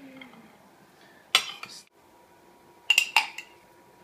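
Metal spoon and fork clinking against a ceramic plate as food is served onto it. There is one clink with a brief scrape about a second in, then a quick run of about three clinks near the end.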